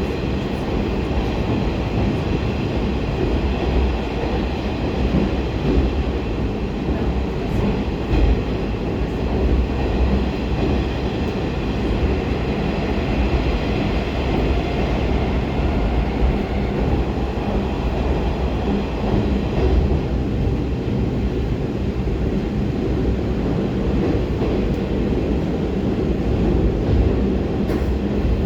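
Inside a 'Baltiets' metro train car running at speed through a tunnel: a steady rumble of wheels on rail with a thin high whine over it.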